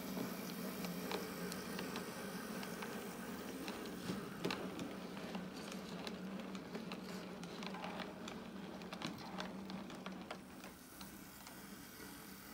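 Model railway diesel shunter running with a rake of hopper wagons: a faint steady motor hum under irregular light clicking of the wheels over rail joints and points. The clicks thin out near the end.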